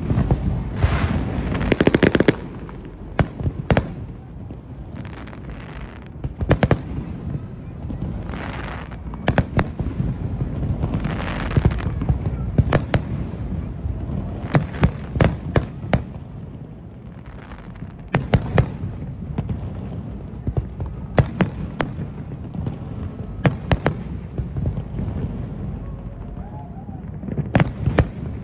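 New Year's fireworks going off: many sharp bangs, some in quick clusters, with stretches of hiss between them over a steady low rumble.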